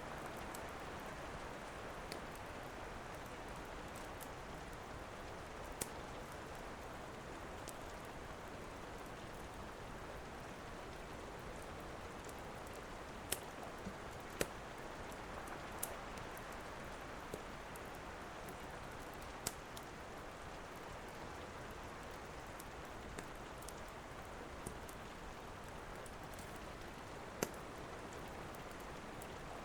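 Steady rain, with irregular sharp pops and crackles from a wood fire, a few seconds apart.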